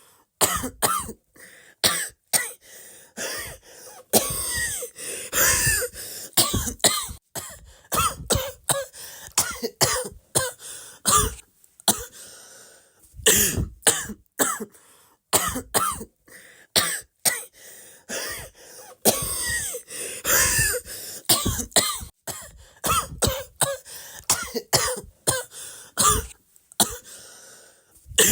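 A person coughing over and over, in quick runs of several sharp coughs with short pauses between them.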